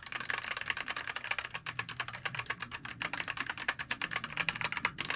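Fast typing on a Heyday full-size wired mechanical keyboard fitted with white keycaps: a rapid, steady run of key clacks, louder with the white keycaps on.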